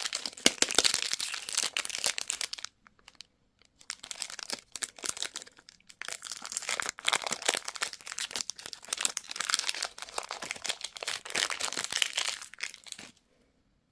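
Candy wrapper crinkling as it is handled and torn open, in dense crackling stretches with a brief pause about three seconds in; it stops shortly before the end.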